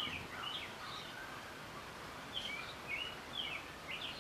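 A small songbird chirping in quick runs of short high notes, with a pause partway through, over a steady background hiss.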